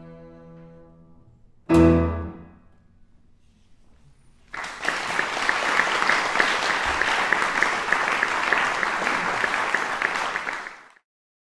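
A held double-bass note with piano fades away, then a short, loud final chord from double bass and piano comes about two seconds in. After a pause of a couple of seconds, audience applause starts and runs about six seconds before cutting off abruptly.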